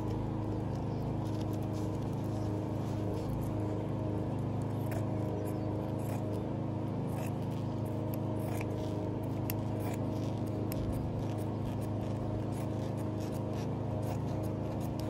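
A steady low hum runs throughout, with faint scattered snips and rustles from scissors cutting through a fabric bedsheet.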